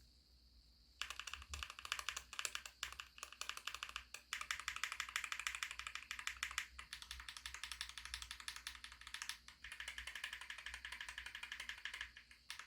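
Lubed tactile mechanical keyboard switches (VARO Panda and Holy Panda) pressed rapidly over and over, a fast run of key clacks starting about a second in, in about four runs split by brief pauses.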